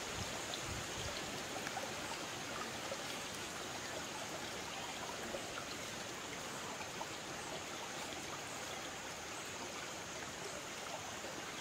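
Steady wash of water running through a shallow, rocky stream.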